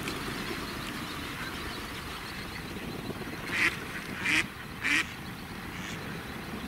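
Three loud duck quacks in quick succession, a little over half a second apart, about three and a half seconds in, over a steady low hiss.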